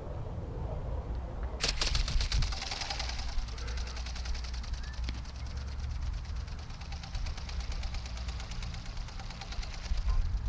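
Small radio-controlled ornithopter's motor-driven geared flapping mechanism: a rapid, even mechanical clatter that starts suddenly under two seconds in and stops near the end, over a low rumble.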